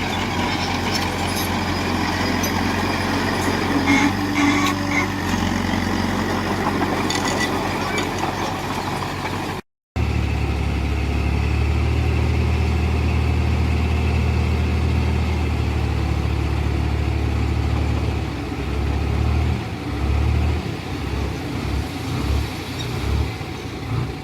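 Heavy diesel engine of earthmoving machinery running steadily. The sound drops out for a moment about ten seconds in, then returns as a deeper, steady engine note that becomes uneven, rising and falling, over the last several seconds.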